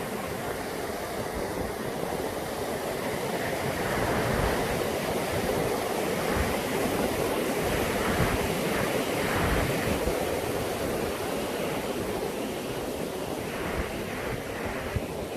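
Glacial river water rushing steadily over a waterfall, a constant roar, with gusts of wind buffeting the microphone.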